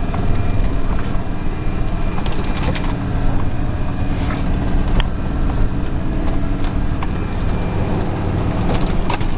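Off-road vehicle's engine running steadily as it ploughs through deep snow, heard from inside the cab, with scattered knocks and scrapes of snow and branches against the body.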